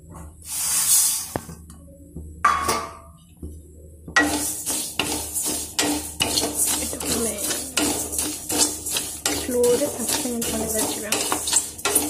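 Two brief rushing noises in the first three seconds, then from about four seconds a wooden spatula stirring and scraping whole spice seeds being dry-roasted in a steel kadai, in quick repeated scrapes with the seeds rattling against the metal.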